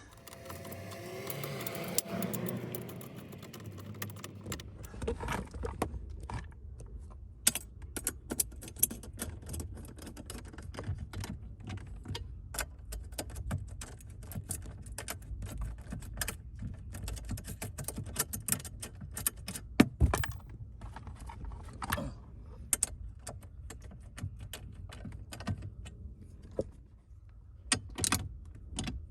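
Irregular small metallic clicks and rattles of hand tools and parts being handled while a steering wheel is reassembled.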